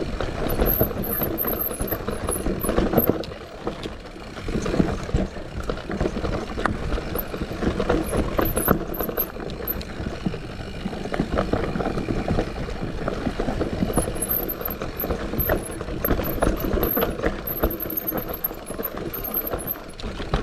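Santa Cruz Heckler mountain bike descending a rough forest trail: tyres rumbling over the dirt and roots, with constant rattling knocks from the bike as it goes over bumps.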